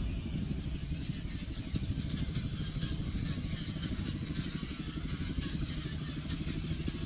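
Radio-controlled model truck running, a steady low rumble with a fast flutter.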